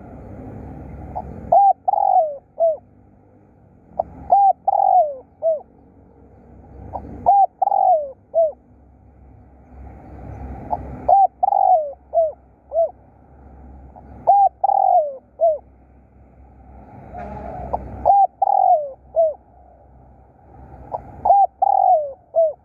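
Spotted dove cooing: its call phrase of a few notes, the loudest a falling coo in the middle, repeated seven times about every three seconds. A low rushing noise swells between the phrases.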